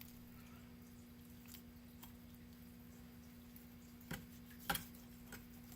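Quiet knife work on a whole chicken on a cutting board: faint small clicks, then two sharper knocks of the knife or carcass on the board about four and four and three-quarter seconds in, over a steady low hum.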